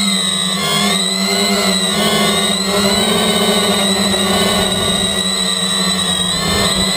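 A quadcopter's electric motors and propellers whining, heard up close from a camera mounted on the craft. It is a continuous whine of several tones whose pitch wavers up and down together as the motors change speed.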